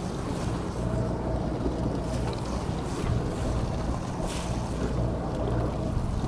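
Steady low rumble of a sportfishing boat's engine, with wind buffeting the microphone and water washing along the hull.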